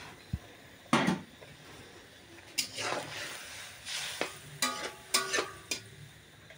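Long-handled metal spatula stirring watery curry in a steel karai, scraping and knocking against the pan about half a dozen times, some strokes leaving a short metallic ring.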